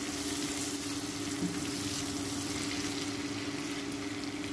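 Potato chunks and onion sizzling steadily in hot oil in a wok, over a constant low hum.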